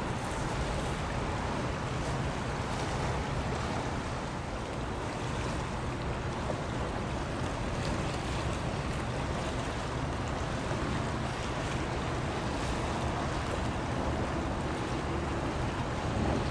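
Steady rush of wind and sea water with a low rumble of wind on the microphone; no distinct engine note or other event stands out.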